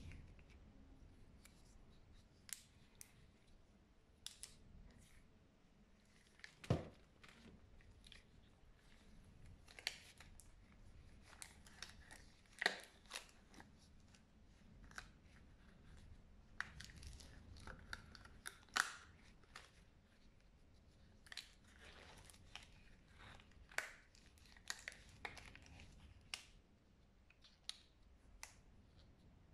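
Latex medical gloves being pulled on over gloved hands and stretched at the cuffs and fingers: irregular short rubbery snaps and rubbing sounds, with a few brief squeaks.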